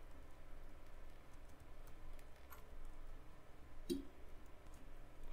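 Soft computer keyboard typing: faint, scattered key clicks as code is typed, with one louder click about four seconds in.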